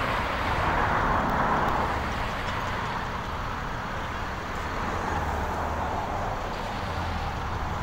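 Road traffic going by: an even tyre-and-engine hiss that is loudest in the first couple of seconds as a vehicle passes, then eases off to a steadier background rumble.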